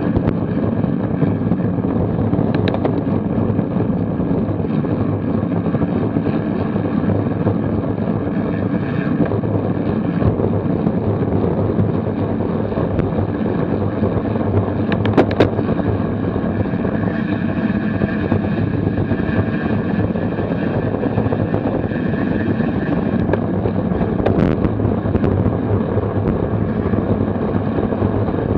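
Steady wind rush and road rumble on a bicycle-mounted camera moving at speed in a pack of racing cyclists, with a few sharp clicks about halfway through and again near the end.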